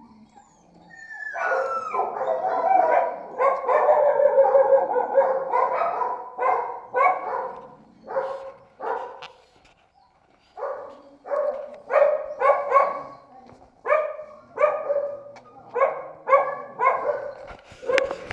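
Dogs in shelter kennels barking: a dense run of overlapping barks starts about a second in, thins out, and after a short lull near the middle gives way to single barks repeated about once or twice a second.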